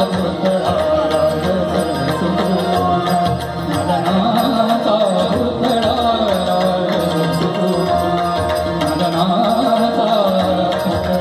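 A male singer singing a Marathi abhang (devotional song) in long, ornamented, gliding phrases, with drum strokes keeping time underneath.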